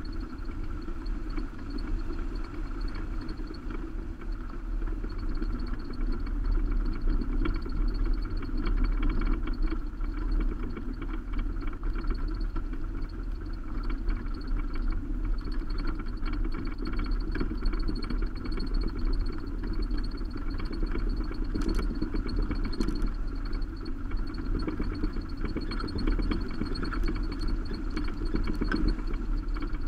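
Subaru Baja driving along a gravel road, heard from its roof rack: a steady low rumble of wind, tyres and engine, with scattered small ticks and a faint steady high whine.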